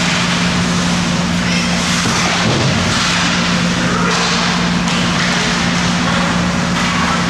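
Ice rink sound during a youth hockey game: a steady loud hum and hiss, with faint voices and a few sharp knocks of sticks or puck on the ice and boards.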